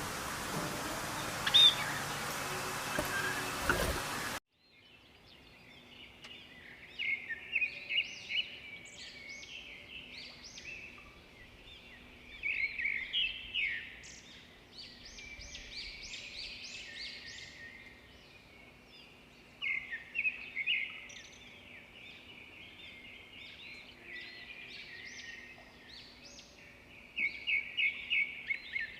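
A loud, even hiss with a few chirps cuts off abruptly about four seconds in, followed by several birds chirping and calling in clusters of short, high notes. Near the end one bird gives a rapid run of repeated notes, about five a second.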